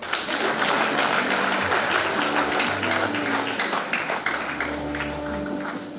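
A crowd applauding, the hand clapping starting suddenly and easing off a little toward the end. A few sustained low musical notes sound underneath from about two seconds in.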